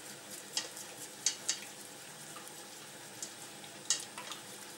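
Wire whisk stirring a thick butter-and-flour sauce in a stainless steel saucepan over a steady low hiss, with the wires clicking sharply against the pot's side now and then, about six times.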